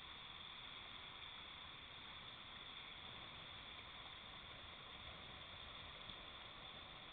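Faint, steady rushing noise of river rapids with no distinct events, under a constant hiss from a low-quality camera microphone.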